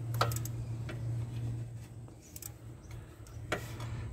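Sharp metallic clicks and taps of hand tools working bolts on an engine: three close together just after the start, then a couple more about two and a half and three and a half seconds in, over a low steady hum.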